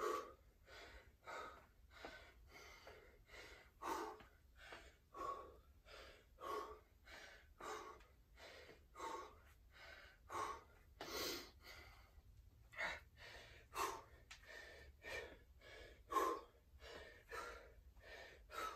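A man breathing hard and fast through the mouth, an even run of heavy in-and-out breaths. He is winded from a hard set of dumbbell burpees and is catching his breath.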